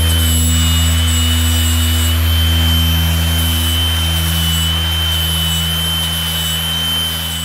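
Milwaukee cordless angle grinder grinding steel from an old carbide-tipped table saw blade clamped in a vise: a steady high whine over the hiss of the abrasive wheel on the metal.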